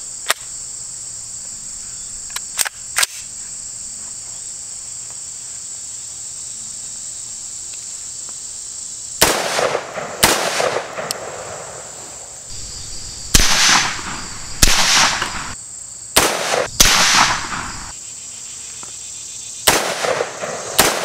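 Unsuppressed 10.5-inch AR-15 pistol fired single shots, about seven of them starting about nine seconds in, spaced one to three seconds apart, each echoing off the surroundings. A few sharp clicks come early on. Insects buzz steadily underneath.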